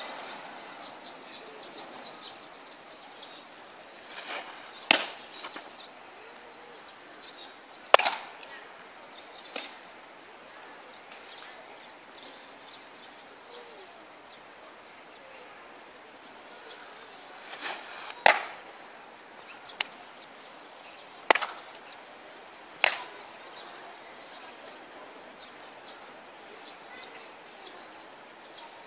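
Baseball smacking into a leather glove: about five sharp pops scattered at irregular intervals several seconds apart, with a few weaker ones among them.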